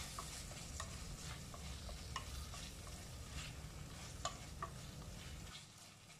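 A wooden spatula stirs and turns potatoes, tomatoes and onion masala in a stainless steel karahi, with faint sizzling and light scrapes and taps against the pan, as the masala is fried (bhuna) after softening. A low steady hum underneath stops near the end.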